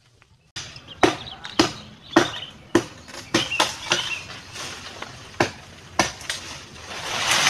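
Chopping strikes on wood: a sharp knock about every half second at first, then at irregular intervals, over a rushing noise that swells near the end.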